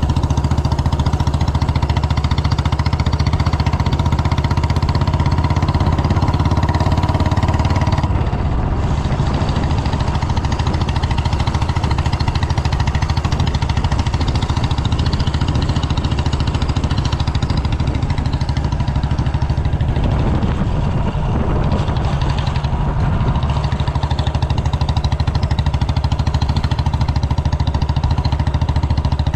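Royal Enfield Bullet's single-cylinder four-stroke engine running steadily, its note shifting slightly about eight seconds in and briefly again around twenty seconds in.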